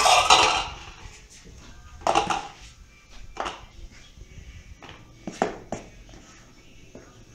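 Metal spoon scraping and clinking against stainless steel mixing bowls as thick cake batter is scraped from one bowl into another. There are a few short scrapes and knocks, the loudest about two seconds in and others around three and a half and five and a half seconds in.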